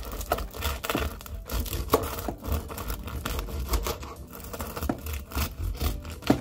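Serrated bread knife sawing through a crusty sourdough rye loaf on a cutting board: repeated rasping strokes with the crust crackling, and a sharp knock near the end.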